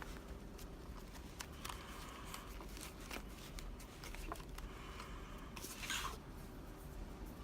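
Scattered light clicks and scraping from a pick and tension wrench working the pins of a 6-pin Medeco Classic lock, with a louder rustling scrape about six seconds in.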